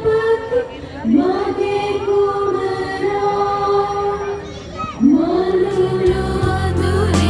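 Slow singing of a hymn in long held notes, the phrases starting about a second in and again about five seconds in. Near the end a low steady musical hum comes in underneath.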